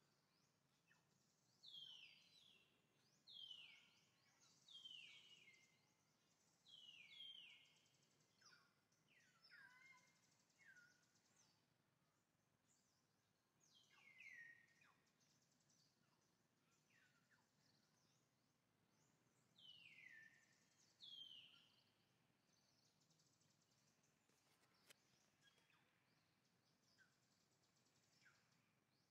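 Faint bird calls: short chirps sliding down in pitch, repeated in clusters a second or two apart, over a soft background hiss.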